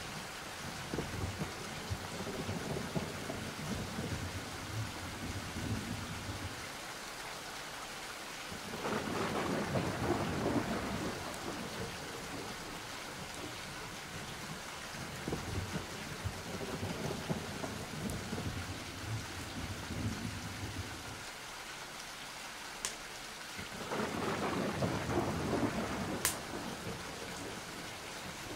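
Steady rain with thunder rumbling, swelling up twice into louder rolls, about a third of the way in and again near the end.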